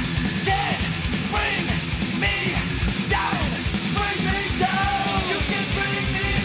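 Loud rock music, punk-style, with a steady driving beat and shouted singing.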